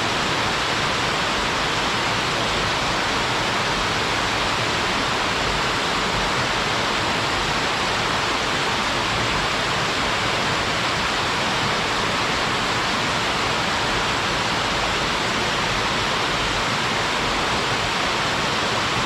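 Waterfall pouring steadily into a mountain stream, a constant even rush of water with most of its energy in the middle and upper range.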